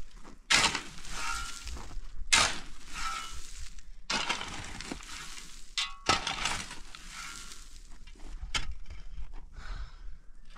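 A series of loud breaking noises, one about every two seconds, each lasting under a second, with quieter scraping between them.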